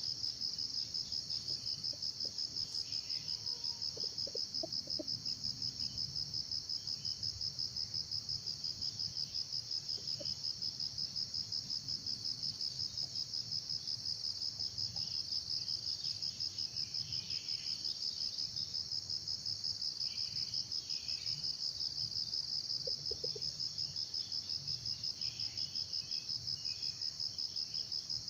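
A cricket trilling continuously: one high-pitched pulsing note at about five pulses a second, over a faint low hum.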